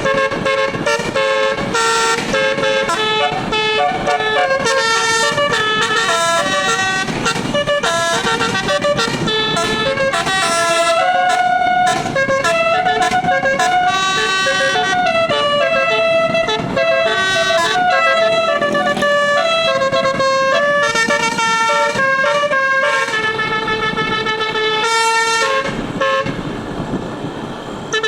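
A bus's 12-note telolet musical air horn playing a rapid melody, its loud horn notes stepping quickly from pitch to pitch without a break. It falls quieter briefly near the end.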